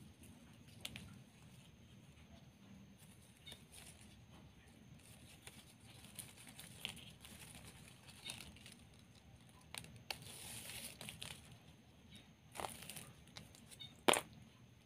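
Faint rustling and crinkling of shiny ribbon being folded and tucked by hand, with scattered light clicks, a longer rustle about ten seconds in and a sharp tap near the end.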